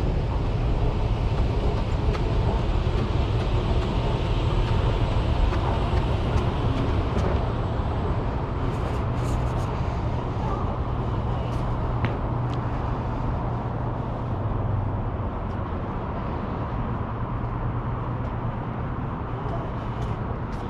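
Steady road traffic noise with a low engine hum that fades over the last few seconds, and a few light clicks in the middle.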